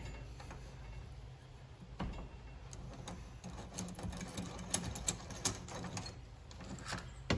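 Light, irregular metal clicks and taps as a part is worked loose and lifted off a mini lathe's compound slide by hand.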